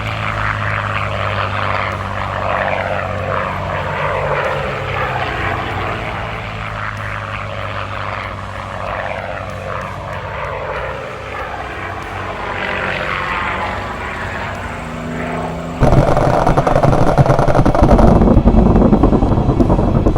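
P-40 Warhawk's V-12 piston engine and propeller running steadily, with higher tones sliding slowly in pitch. About 16 seconds in, a much louder rapid rattling sound suddenly begins and continues.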